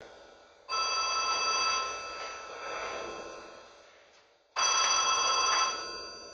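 Telephone bell ringing twice. Each ring lasts about a second and then fades, and the second ring starts about four seconds after the first.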